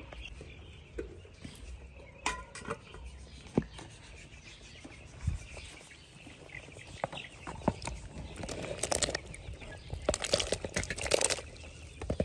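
Pot of seafood broth boiling over a wood fire: irregular bubbling and crackling that grows denser near the end. A short chirp sounds about two seconds in.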